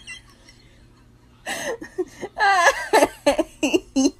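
A person laughing in a series of short voiced bursts, including one longer drawn-out laugh, starting about a second and a half in.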